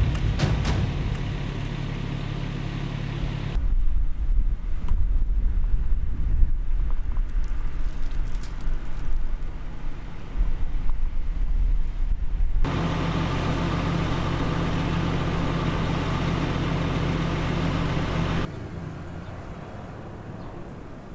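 Outdoor location sound in cut-together sections: a steady engine hum, broken midway by several seconds of uneven low rumble. It drops to a quieter background near the end.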